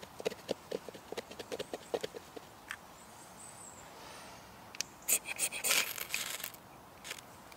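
A knife blade scraping over white tinder on a split wooden log in quick repeated strokes. About five seconds in, a fire steel is struck several times in harsh rasping scrapes, louder than the knife, throwing sparks onto the tinder to light a fire.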